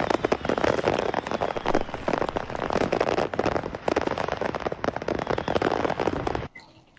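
A crashed truck's load of fireworks going off in a rapid, continuous crackle of pops and bangs, which cuts off abruptly about six and a half seconds in.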